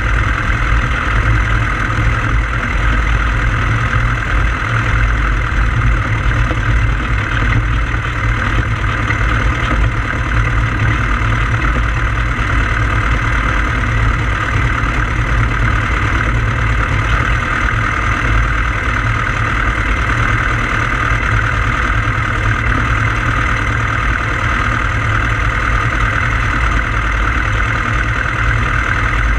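Engine of a Pou-du-Ciel (Flying Flea) light aircraft running steadily at a constant speed, loud and close on the airframe-mounted camera.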